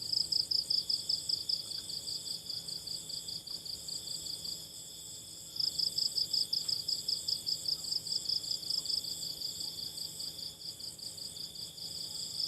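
Chorus of night insects, crickets and the like, calling together in a rapid, steady trill with fainter high-pitched buzzing behind it. The loudest pulsing call fades a little about four seconds in and comes back strongly about a second later.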